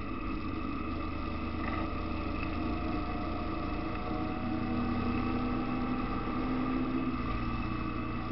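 Motorcycle engine running at a steady cruise while riding, its pitch drifting slightly up and down.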